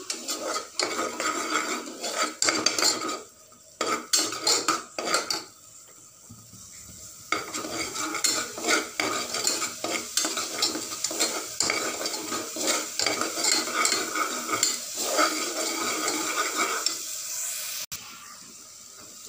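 Metal spoon stirring and scraping a thick onion and ginger-garlic paste frying in oil in a pressure cooker, with many quick scrapes and clinks against the pot's sides and base, over a faint sizzle. The stirring stops briefly a few times, the longest near the end.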